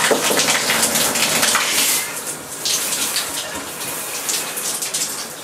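Water spraying from an open shower arm while a new high-efficiency shower head is threaded on by hand, the water left running. The spray is louder at first and drops in level about two seconds in.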